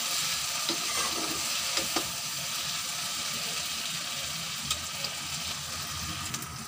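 Chopped okra sizzling steadily as it fries in mustard oil in a metal kadai, with a spatula stirring and scraping the pan and a few light clicks in the first two seconds. The okra is nearly done, its oil coming up to the top.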